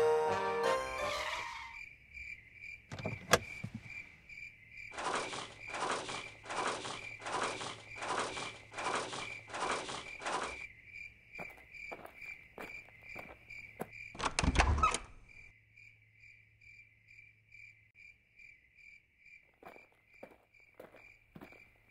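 Crickets chirping in a steady pulsing trill, with music fading out in the first two seconds. Midway comes a run of eight evenly spaced strokes, then a single heavy low thud, and a few faint clicks near the end.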